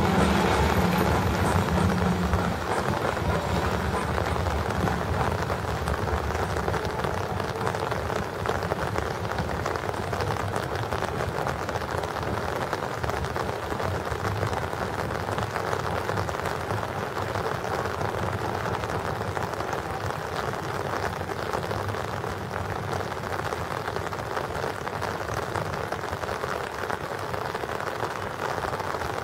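Steady hiss of rain. The low rumble of the departing steam train fades out in the first few seconds.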